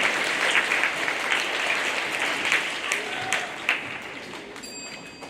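Audience applauding, a dense patter of many hands clapping that fades away near the end. Near the end a steady high electronic tone comes in.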